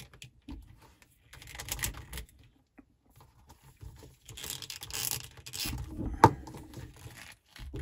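Handling noise from a 1:6 scale action figure: small plastic clicks and rubbing as a swappable hand is worked off its wrist peg, with one sharp click a little after six seconds in.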